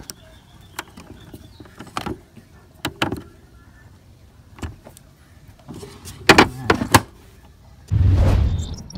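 Small metal clicks and scrapes of needle-nose pliers working the wire terminal screws of an irrigation controller, with a few louder knocks a little past the middle. Near the end a loud rushing whoosh sound effect swells in.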